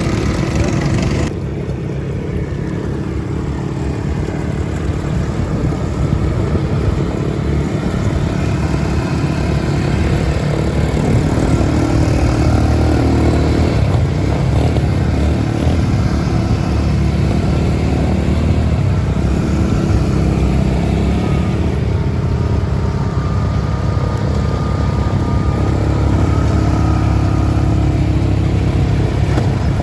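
A motor vehicle's engine running steadily and close, like a motorcycle or ATV being ridden, with a change in the hiss about a second and a half in.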